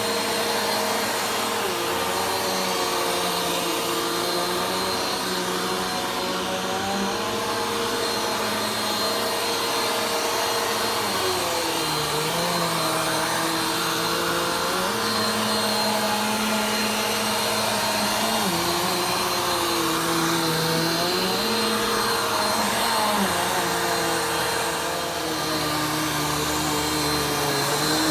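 Vacuum cleaner running continuously while being pushed slowly over the floor, a steady motor whine whose lower hum steps up and down in pitch every few seconds.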